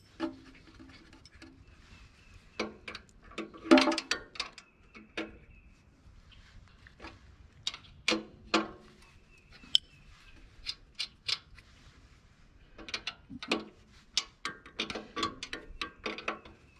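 A steel wrench clinking and knocking against the nut and frame as a jam nut on the sawmill's band wheel adjusting bolt is tightened: irregular metal-on-metal clicks in short clusters, the loudest about four seconds in.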